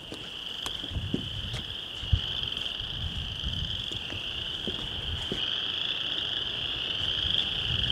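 A chorus of small marsh frogs calling in a steady, high-pitched drone that carries on without a break, with a few scattered low thumps.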